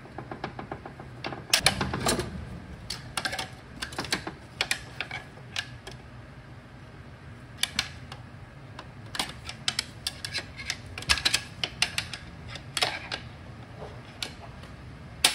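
Irregular metal clicks and scrapes as a heavy snap ring is pried out of a Toyota AB60E automatic transmission case with a pick.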